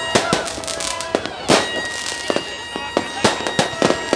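Fireworks going off in a dense volley: irregular sharp bangs and cracks, several a second, the loudest about a second and a half in.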